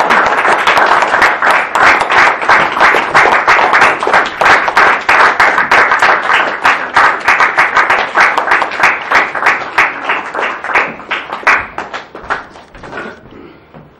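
Audience applauding: a steady round of many people clapping that thins out to a few claps and dies away near the end.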